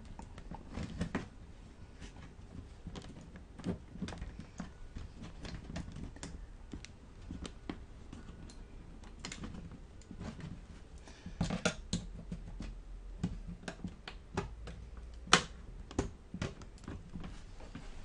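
Irregular small plastic clicks and taps as a flathead screwdriver is worked along the seam of a netbook's plastic bottom cover to pry its snap-in clips loose, with one sharper, louder click late on.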